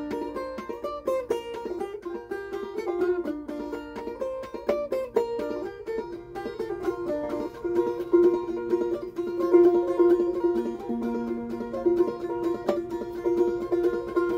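Banjo picked in a quick, even stream of single notes, with one note ringing on underneath through the second half.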